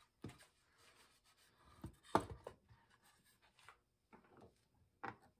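A thick wooden board handled in a wooden bench vise: scattered light knocks and rubbing of wood on wood, with the sharpest knock about two seconds in.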